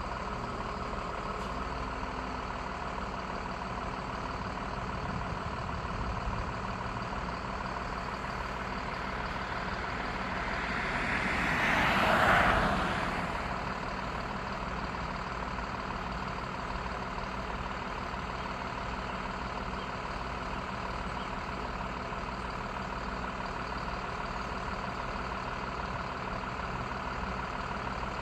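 Steady hum of an idling vehicle engine, with one passing vehicle rising and fading about twelve seconds in.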